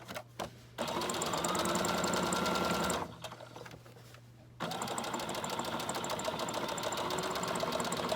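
Electric sewing machine stitching fabric in two runs of a few seconds each, with a pause of about a second and a half between them while the fabric is turned. Each run spins up quickly at the start and then runs at an even stitching rate.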